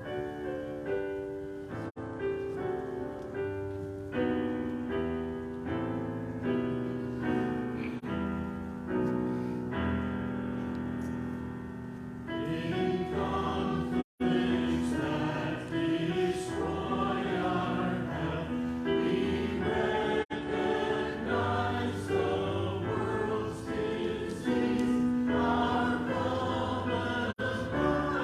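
Hymn with piano accompaniment: about twelve seconds of piano playing the introduction, then the congregation's voices come in singing. The audio drops out for a split second soon after the singing starts.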